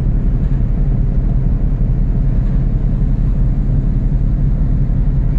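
A car ferry's engines running steadily under way, a deep constant rumble.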